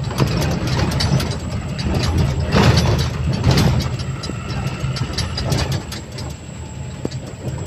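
Tipper truck heard from inside its cab on a rough, rutted dirt road: the diesel engine hums steadily under constant clattering and knocking of the cab and body. Two heavier jolts come around the middle.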